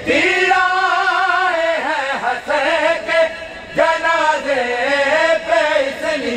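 A man reciting a noha, a Shia lament, singing long wavering melismatic phrases with brief breaths between them.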